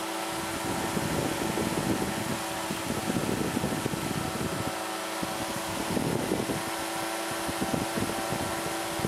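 Powered parachute's engine and propeller running steadily in flight, a constant drone with several steady tones, with uneven low rumbling of wind on the microphone.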